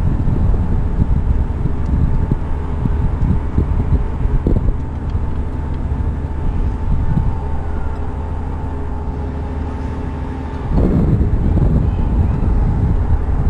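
Wind rumbling on the microphone over a steady mechanical hum. It eases for about six seconds in the middle and picks up again near the end.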